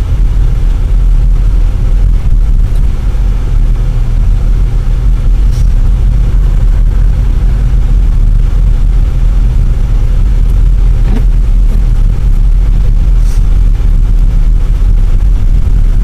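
Steady low rumble of a car's engine and tyres, heard from inside the cabin while driving on a snow-covered road.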